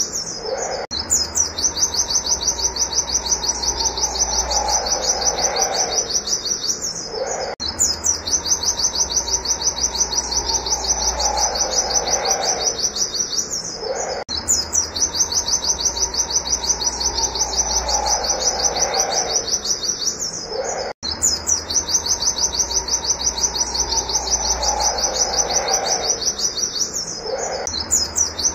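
White-eye (pleci) singing its rapid-fire 'wit wit' song, a fast run of high, even chirps. The run breaks off and starts again about every six to seven seconds, with a fainter, lower call that falls in pitch beneath it.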